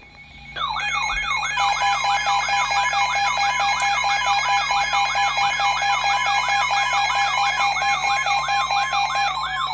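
Electronic emergency alert tone: a siren-like warble sweeping rapidly up and down, about three times a second, over a steady tone. It is the alert signal that precedes a broadcast severe thunderstorm warning.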